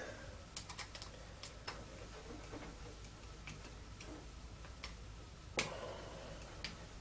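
Screwdriver tightening the cable-grip screws of a UK 13 amp plug: a few faint, scattered clicks, the loudest a little over halfway through.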